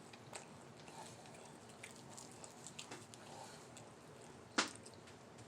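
Faint eating sounds: quiet chewing with small scattered clicks, and one sharper click about four and a half seconds in.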